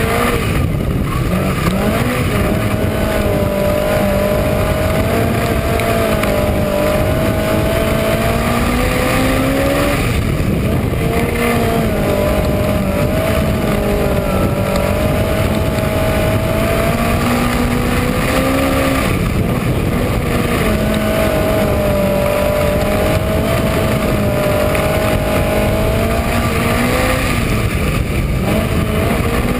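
Minisprint race car's engine heard from on board, running hard round a dirt oval. The note dips and climbs again each time the driver backs off for the turns, about every nine to ten seconds.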